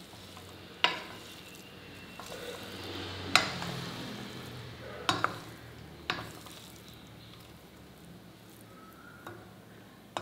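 A spoon mixing cooked rice and potato pieces in a metal pressure-cooker pot: a soft rustle of the rice, with the spoon clinking sharply against the pot about six times.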